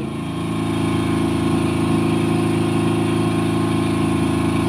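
A small engine aboard a fishing boat running steadily at an even speed, a constant low hum with a faint steady whine above it.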